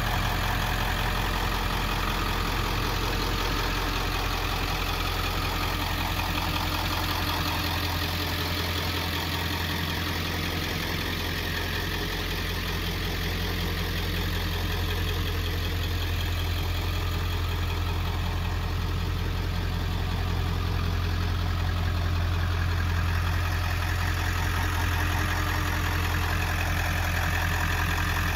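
1995 Ford F-250's 7.3L Power Stroke turbodiesel V8 idling steadily.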